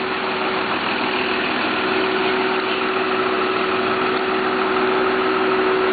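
Diesel engine of a large Class A motorhome running steadily with a constant hum as the bus moves slowly off.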